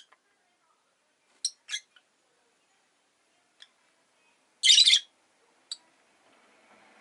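Rosy-faced lovebird giving short, high chirps with pauses between: two quick chirps about a second and a half in, a louder, longer squawk near five seconds, and one brief chirp after it.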